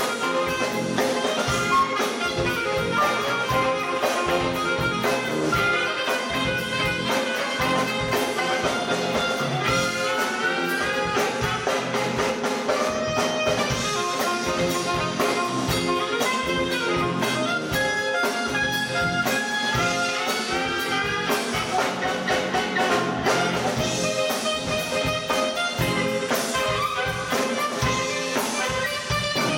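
Live band with a saxophone section and trumpet playing a horn-led instrumental over a steady drum beat.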